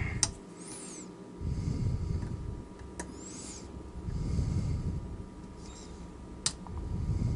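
Lock pick working in a cast-aluminum mortise lock cylinder: three sharp clicks and short, faint scratching, with low rumbles of handling noise in between.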